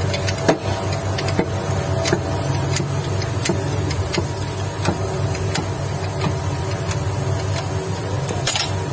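Steady hum of a workshop machine running, with scattered light metal clicks as steel shafts and a crank pin are handled in a press fixture.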